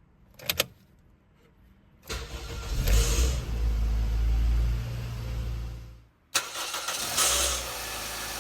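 Toyota Probox/Succeed engine started twice: two clicks, then the engine cranks, catches and runs for about four seconds and stops, then starts again and settles to idle. Right after each start there is a brief rasping 'jaa' noise, typical of a starter motor whose pinion gear spins on with the ring gear in cold weather.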